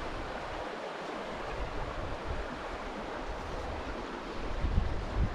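Wind buffeting the camera microphone outdoors, a steady rushing hiss with uneven low rumbling that gusts a little near the end.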